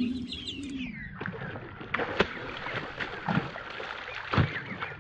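Water splashing and sloshing with sharp knocks every second or so, while a hooked largemouth bass is fought near the boat. Birds chirp faintly in the background.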